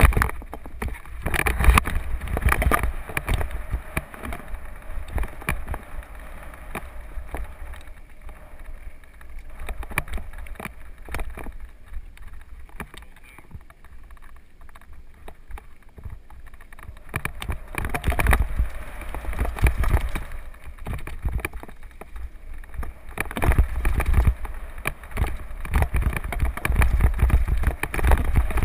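Mountain bike riding fast down a dry dirt and gravel trail, heard from a camera mounted on the bike: wind rumbling on the microphone over tyre noise on the dirt, with frequent knocks and rattles from bumps. It is louder for the first few seconds and again for the last ten or so, quieter through the middle.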